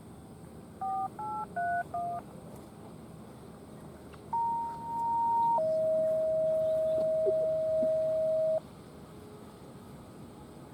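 Radio signalling tones from a scanner's speaker: four quick DTMF touch-tone beeps about a second in, then a two-tone page, a higher steady tone for just over a second stepping down to a lower steady tone held about three seconds.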